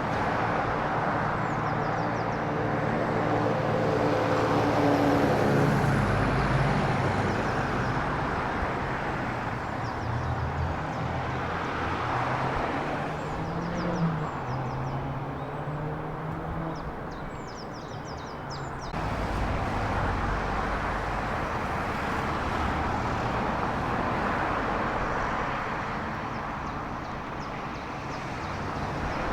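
Vehicle engines running with a steady rumble. An engine note rises about 13 seconds in and then holds, and the sound changes abruptly about 19 seconds in.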